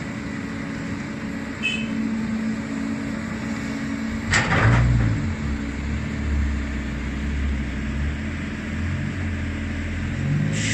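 Cat 320D excavator's diesel engine running steadily as the machine works, with a loud clunk about four seconds in. After the clunk the engine settles into a deeper, heavier rumble. Another clunk comes near the end.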